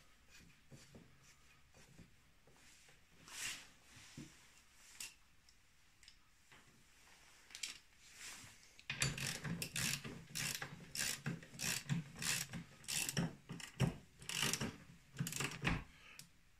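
Ratchet wrench clicking as the nut on the snowmobile's brake disc and chain-case shaft is tightened. Faint scattered clicks of handling at first, then from about halfway a dense run of quick ratchet clicks.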